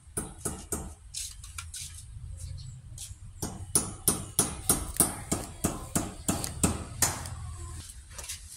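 Hammer blows nailing a steel window grill in place: a run of sharp strikes about two to three a second, pausing for a couple of seconds about a second in.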